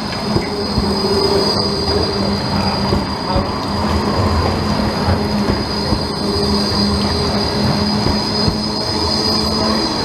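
Low-floor Bombardier Flexity tram passing close by on curved track, its wheels squealing against the rails in a steady high tone over the low hum and rumble of its running gear.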